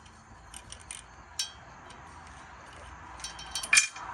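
Light metallic clicks and clinks from a valve stem puller tool being handled and taken off a newly fitted valve stem: a few scattered clicks, then a quick cluster of louder ones near the end.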